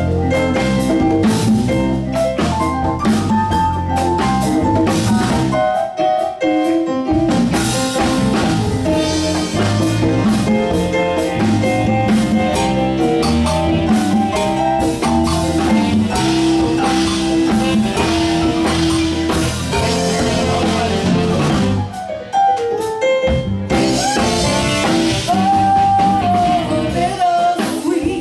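A live blues band plays an instrumental passage, with a keyboard solo over drums and bass. The low end drops out briefly twice, about six seconds in and again near the end.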